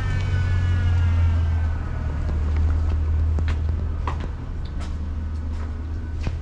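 Road vehicle running close by: a steady low engine rumble, with a whine that slowly falls in pitch and fades out about two seconds in, as from a vehicle moving away. Scattered light clicks.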